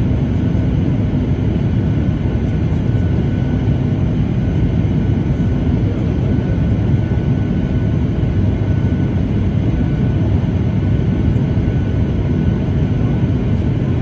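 Steady jet engine and airflow noise heard inside an airliner's cabin in flight, a constant low rush with a faint steady whine above it.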